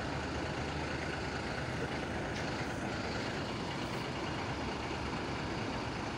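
Intercity coach's diesel engine running steadily at idle, a low even hum.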